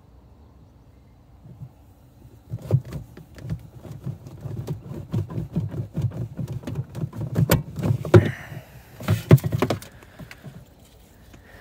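A heavy rubber-jacketed RV shore power cord being handled and dragged out of its storage compartment: a dense run of rubbing, scraping and knocking against the metal junction box and the hatch edges. It starts about two and a half seconds in, has a few louder knocks, and stops around ten seconds.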